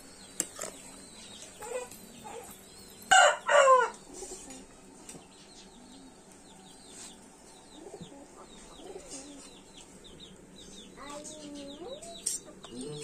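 Domestic chickens calling: two loud squawking calls about three seconds in, then softer clucks and chirps that come and go.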